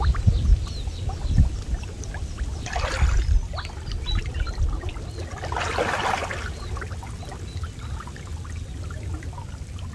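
Water splashing and sloshing as a person wades through a shallow muddy river and works a fishing net, with two louder splashes about three and six seconds in.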